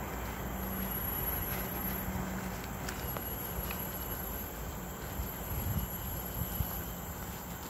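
Steady rumbling wind and handling noise on a handheld phone's microphone, carried by someone walking, with a few soft footsteps on the path in the second half.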